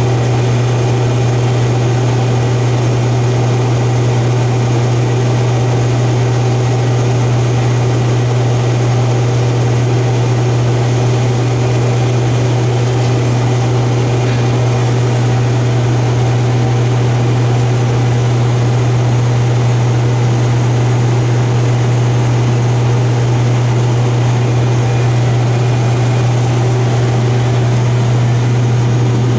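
Combine harvester running steadily at work: a loud, even machine drone with a strong constant low hum and several steady whining tones above it, unchanging throughout.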